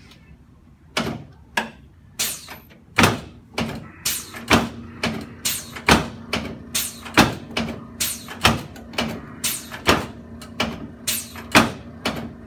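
Chiropractic adjusting equipment working on the low back and pelvis: a rhythmic run of sharp clacking knocks, about two a second and uneven in loudness, starting about a second in, with a steady hum underneath from about three seconds in.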